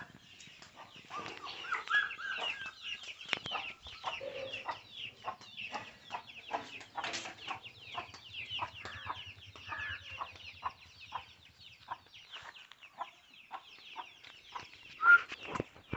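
Chickens clucking, with many short calls one after another and a louder call near the end.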